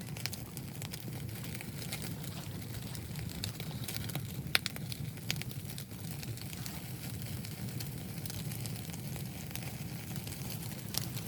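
Wood fire crackling, with scattered sharp pops over a steady low rumble; the loudest pop comes about four and a half seconds in.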